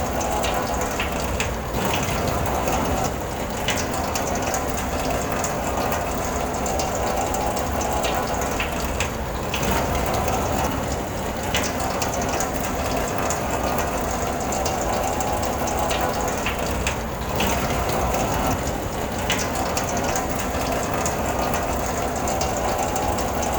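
Rain falling on a car, heard from inside the car: a steady hiss of rain with many sharp ticks of drops striking the car.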